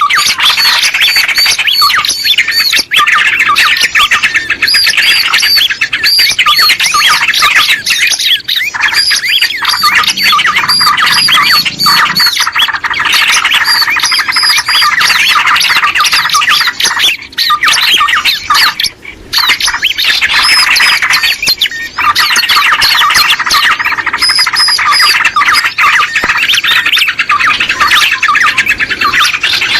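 Many small birds chattering in a dense, continuous stream of rapid, overlapping chirps, briefly thinning about two-thirds of the way through. This is a lure call (suara pikat), a recording of small birds played to draw wild small birds in.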